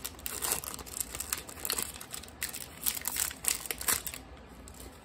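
Foil wrapper of a Pokémon card booster pack crinkling as it is opened by hand, a run of sharp crackles that stops about four seconds in.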